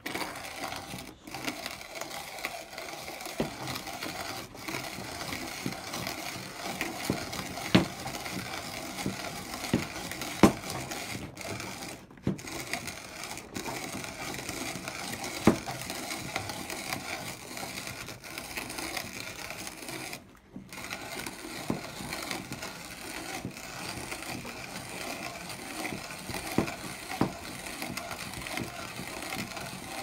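Vintage hand-cranked conical burr coffee grinder grinding coffee beans on its finest setting: a steady crunching and rasping as the handle turns, with scattered sharp cracks of beans breaking and a brief break in the turning about two-thirds through.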